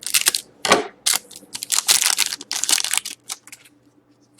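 Foil hockey card pack wrapper being torn open and crinkled, a run of loud rustles over the first three seconds, then a few light clicks.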